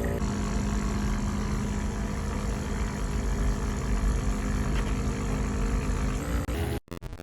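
DeLonghi Magnifica Evo coffee machine running with a steady hum. The hum cuts off abruptly near the end.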